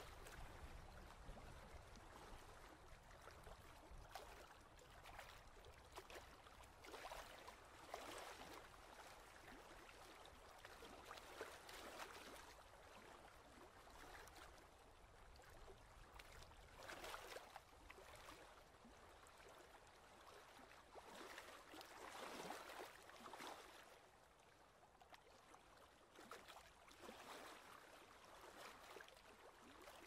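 Faint, irregular lapping of small waves against a rocky lakeshore: soft splashes and washes of water that come and go, a little louder now and then.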